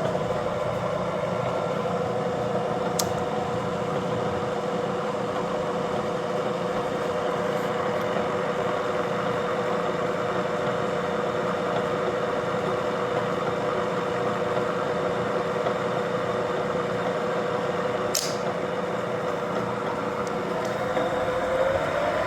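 Bridgeport Series 1 variable-speed milling machine head running in direct drive, its 1.5 hp three-phase motor turning the spindle with a steady whine. The head sounds good. A second, rising whine comes in near the end.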